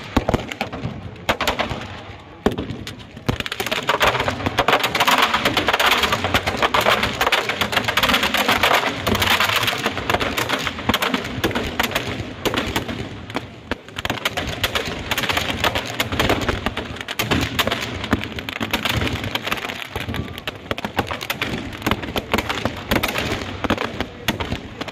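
Firecrackers inside a burning Ravana effigy going off, a few single bangs at first, then a dense, continuous crackle of rapid pops about three seconds in, thinning toward the end.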